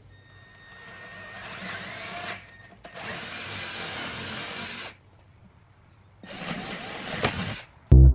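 Power tool cutting a hole through the rear panel of a van's water bench. It runs in three stretches of about two seconds each, with short pauses between them; the first builds up gradually.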